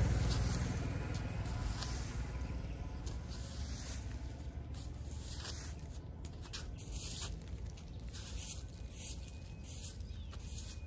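Plastic-bristled broom sweeping dry leaves across tiled pavement, with short scratchy strokes about one or two a second. A low rumble fades out over the first couple of seconds.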